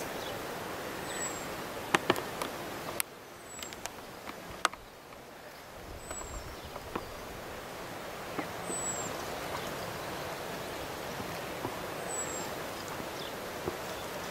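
Sea surf breaking on rocks, heard from a distance as a steady rush, with scattered sharp clicks. The level drops suddenly about three seconds in and builds back up over the next few seconds.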